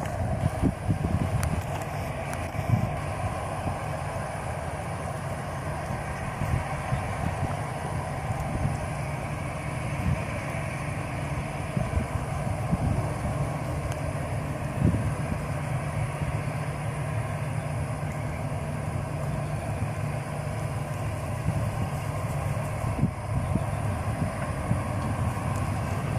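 Boeing 737-300's CFM56-3 jet engines running steadily at low power as the airliner rolls slowly along the runway after landing, with wind buffeting the microphone.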